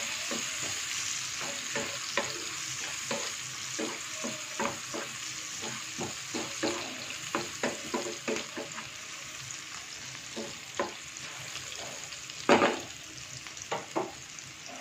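Almonds, cashews and sliced dried dates sizzling in hot ghee in a nonstick frying pan as they are stirred with a wooden spatula, with frequent sharp clicks and taps. Near the end there is one louder knock, then two lighter taps.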